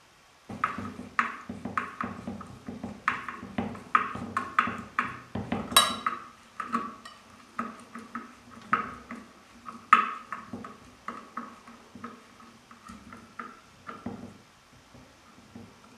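Irregular metallic clinks and taps with a slight ring, several a second, as the ceiling fan's metal motor cover and its screws and lock washers are handled and fastened. The loudest clinks come about six and ten seconds in, and the taps thin out near the end.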